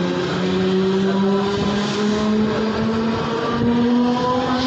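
Mumbai suburban electric local train pulling away, its electric traction motors whining in a pitch that climbs in steps as it gathers speed, over the rumble of the wheels on the rails.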